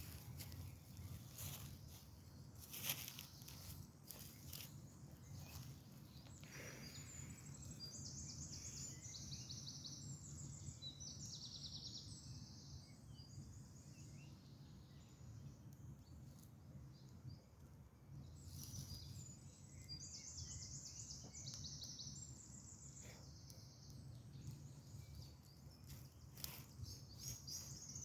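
A wood fire crackling with sharp, irregular pops, mostly in the first few seconds, while songbirds sing fast, high trills in two long bouts and again near the end.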